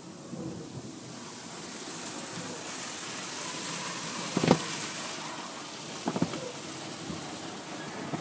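Automatic car wash heard from inside the car: water spray hissing and pattering on the windshield while cloth wash strips swish over the glass, growing stronger a couple of seconds in. A sharp knock about four and a half seconds in, and a few lighter knocks about a second and a half later.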